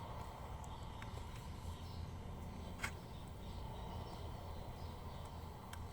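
Faint steady low hum of room noise with a few light clicks, the clearest just under three seconds in.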